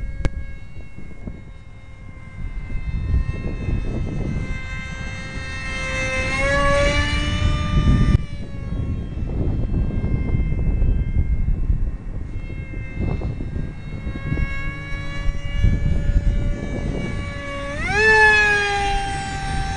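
Electric motor of a scratch-built RC F-18 model jet whining as the plane flies overhead. The whine rises in pitch and loudness about six seconds in, and again sharply near the end as the plane comes close, then falls away. A low wind rumble on the microphone sits underneath.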